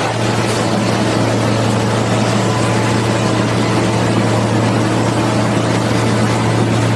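Diesel engine of a Plasser & Theurer Unimat 09-475/4S track tamping machine running close by, a loud steady drone with a constant low hum.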